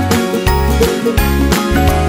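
Background music with a steady beat: held bass notes under pitched instruments.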